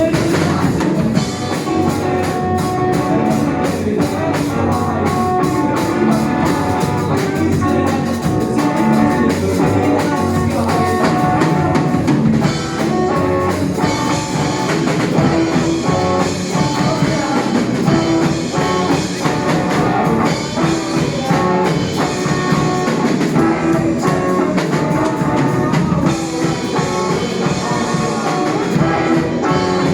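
A rock trio playing live: guitar, bass guitar and drum kit with busy cymbal hits, in an instrumental stretch with no singing.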